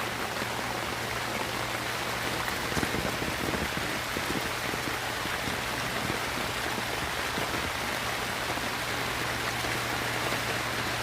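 Steady heavy rain falling, an even hiss with a few faint taps of drops.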